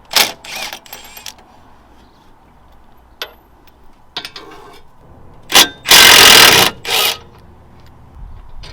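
Impact wrench run in short bursts on a socket, loosening suspension fasteners. Several quick bursts near the start, then the longest and loudest burst about six seconds in, followed by one more short burst.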